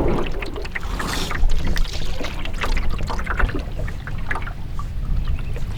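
Canoe being paddled: water splashing and dripping off the paddle with small knocks, over a steady low rumble; the sound cuts off abruptly near the end.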